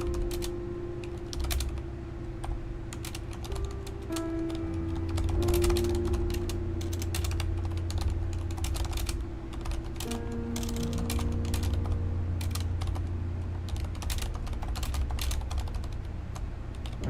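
Typing on a Corsair mechanical keyboard: quick, irregular keystroke clicks. Slow background music with long held notes plays underneath.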